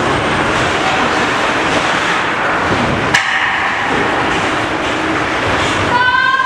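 Ice-arena ringette game: a steady din of play with many small knocks, one sharp crack about three seconds in, and a raised voice calling out near the end.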